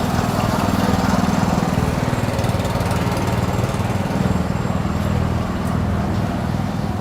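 Small engine running steadily with a fast even putter, over the general noise of a busy street market.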